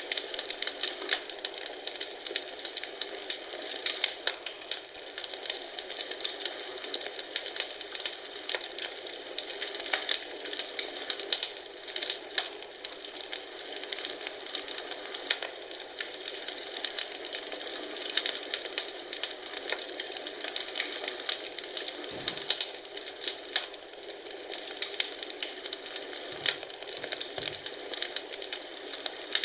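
Wood fire crackling in a fireplace: a dense, irregular run of small pops and snaps over a steady hiss.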